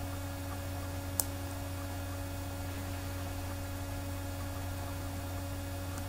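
Steady low electrical hum, with one sharp click about a second in from a computer mouse.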